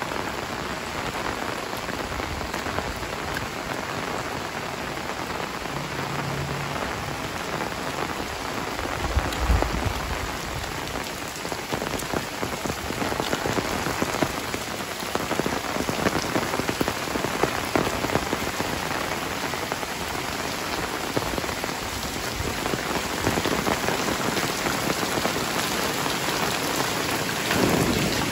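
Heavy rain pouring down on a paved lane and tiled roofs: a dense, steady hiss of drops, briefly louder near the end.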